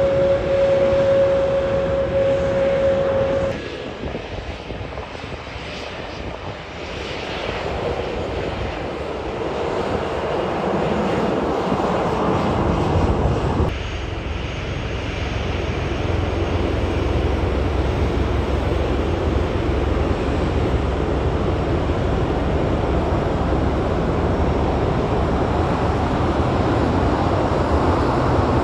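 Jet airliners taxiing, in three edited segments. First an Airbus A320neo's engines with a steady hum over a rush, which cuts off about three and a half seconds in; then a jet rush that swells through the middle; from about fourteen seconds a Boeing 737's engines with a steady low rumble.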